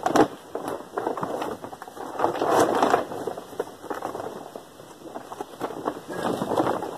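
Heavy-duty tarp rustling and crackling as it is hauled in and bunched up by hand, in irregular loud bursts.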